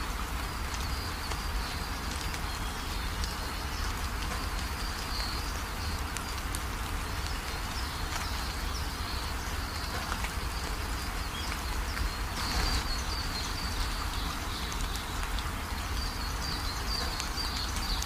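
Steady rainfall with a dense patter of drops over a low rumble, and a high chirping that comes and goes.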